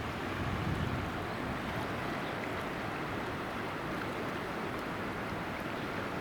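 Steady rushing of a flood-swollen river after a typhoon, with wind buffeting the microphone in low gusts about a second in.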